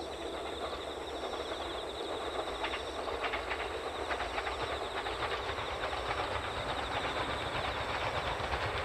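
485 series electric train approaching along the line, the rumble and rapid clicking of its wheels on the rails growing louder toward the end, over a steady high-pitched trilling.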